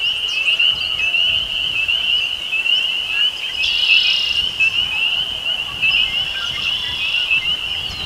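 Chorus of spring peepers: many short, high, rising peeps overlapping into a continuous shrill band. A brief buzzy bird call cuts in over it near the middle.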